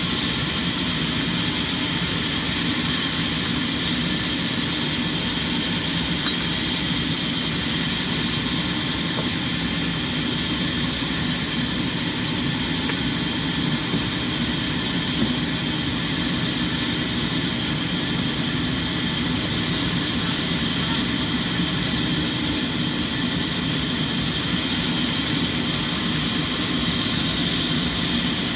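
Sawmill machinery running: a steady, unchanging mechanical drone with a constant high whine.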